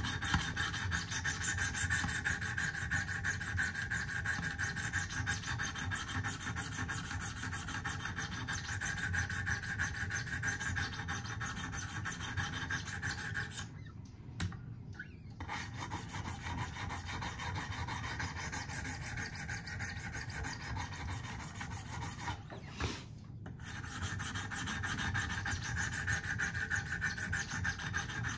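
Wicked Edge diamond stones scraping along a steel knife edge in quick alternating strokes, making a steady rasp. The rasp stops briefly twice, about halfway through and about four-fifths through. The stones are grinding chipped edge damage out of a recurve blade.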